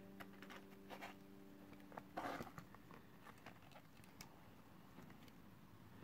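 Faint rustles and light clicks of a leather strap being handled and worked through a metal buckle, with one louder scrape a little over two seconds in. The last held note of background music dies away over the first two seconds.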